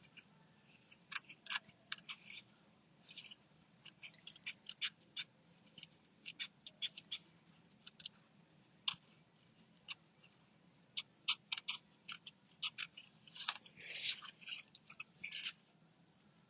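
Small scissors snipping paper in short, irregular cuts while fussy-cutting around a stamped image, with a quicker run of snips near the end.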